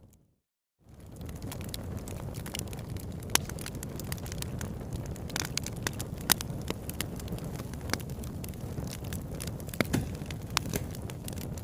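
Crackling fire: a steady low rumble dotted with irregular sharp pops and snaps. The sound cuts out briefly just after the start and fades back in.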